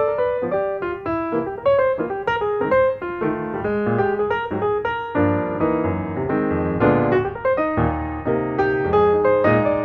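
Background piano music, with notes following one another in quick succession.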